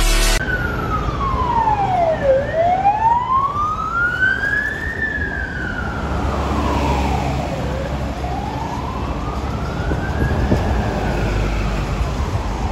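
Ambulance siren in a slow wail, its pitch sweeping down and back up about every five seconds, over low traffic rumble. A brief burst of electronic music cuts off just before the siren starts.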